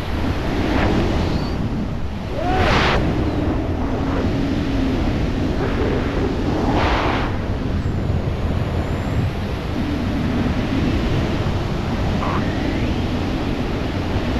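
Loud rushing wind buffeting a helmet-mounted camera's microphone during wingsuit freefall, with two stronger gusts about three and seven seconds in.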